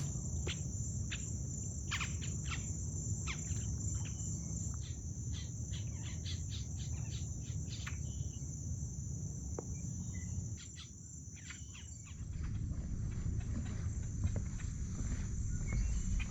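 Insects, crickets or similar, trilling in one steady high-pitched drone, with scattered light irregular taps and a low rumble underneath.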